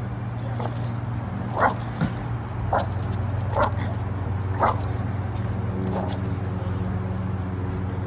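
Dog barking in short, spaced barks, roughly one a second, over a steady low hum.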